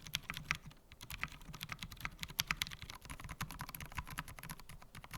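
Fast typing on an AM Compact Touch mechanical keyboard with its stock keycaps: a quick, uneven run of key clacks, pausing briefly about a second in.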